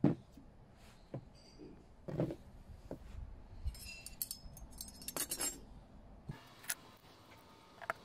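Metal bicycle quill pedals set down on a chipboard surface with a sharp knock, then further knocks and clicks as they are shifted. About four seconds in comes a run of light metallic clinking and jingling as the pedal cages and chrome toe clips are handled.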